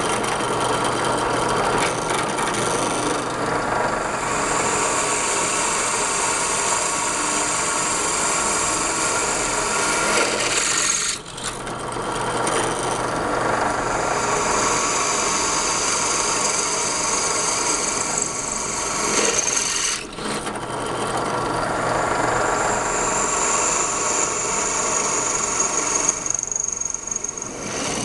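4x36 belt sander grinding a crane-cable Damascus steel knife blade: a steady, gritty rasp of steel on the running belt with a high whine over it. The grinding breaks off briefly twice, about 11 and 20 seconds in, as the blade is lifted from the belt.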